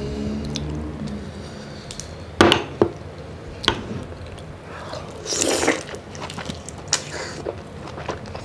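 Close-up eating sounds of a sauce-covered tiger prawn: sharp crunches and clicks of shell being bitten and chewed, the loudest about two and a half seconds in, with a wet slurp around the middle.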